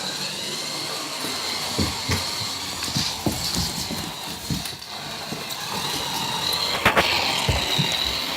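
Small electric motor of a toy radio-controlled Lamborghini car whining as it drives, its pitch wavering up and down, with scattered knocks and thumps throughout.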